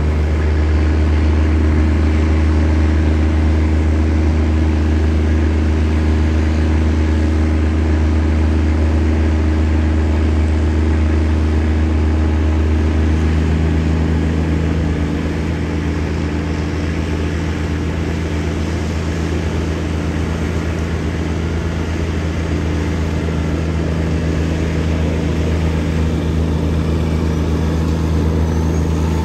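Diesel engine of a heavy semi truck hauling a tank on a lowboy trailer, running steadily at low speed as it creeps closer; a continuous low drone that grows a little louder near the end.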